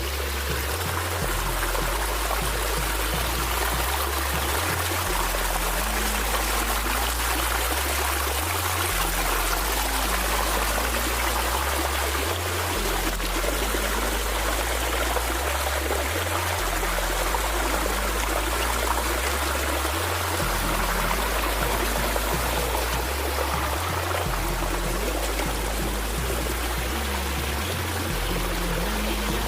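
Background music with a repeating low bass line, over the steady rush of running water.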